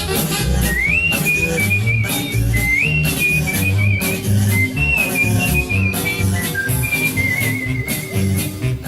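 Upbeat instrumental music with a whistled lead melody that slides up into notes and wavers with vibrato, over a bass line and a steady drum beat.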